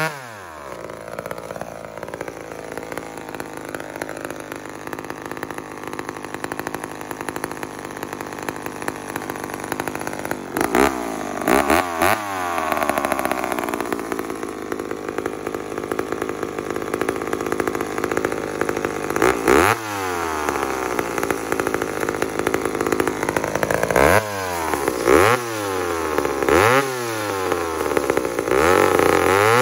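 Two-stroke chainsaw cutting down through a thick round of very hard wood, running under heavy load. The revs drop sharply as the cut starts, swing up and down several times as it works through the cut, and climb steeply near the end.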